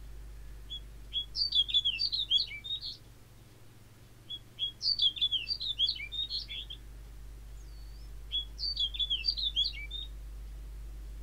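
Snow bunting singing: three short phrases of quick chirps and whistles, a couple of seconds apart, over a faint steady low hum.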